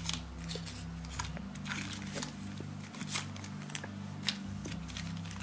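Small plastic zip-lock bags and a clear plastic case crinkling and clicking as they are handled: a scatter of short crackles and taps.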